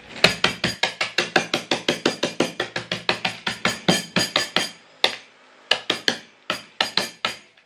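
Wooden pestle pounding a plastic bag of Marie biscuits and cornflakes on a tabletop, crushing them. Rapid, even knocks at about five a second for some four seconds, then a brief pause and a few more scattered blows near the end.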